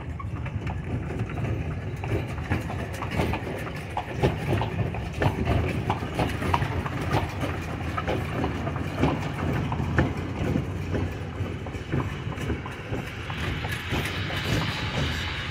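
Horse's hooves clip-clopping on the paved street as it pulls a carriage, a quick uneven train of knocks over a steady low rumble.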